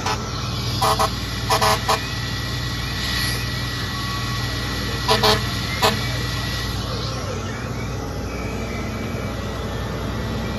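Several short horn toots from an emergency vehicle, some in quick pairs, all within the first six seconds. Under them runs the steady low rumble of idling fire apparatus.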